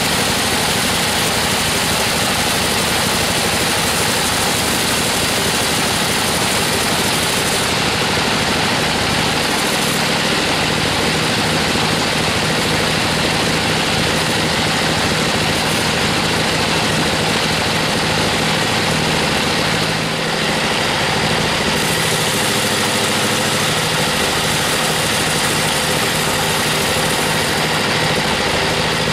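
Band sawmill running steadily, its blade cutting along a weru (Albizia procera) log over the mill's engine.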